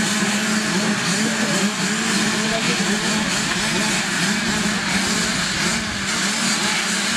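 A line of 85cc two-stroke youth motocross bikes revving together at the start gate, many engine notes overlapping, each rising and falling as the riders blip their throttles.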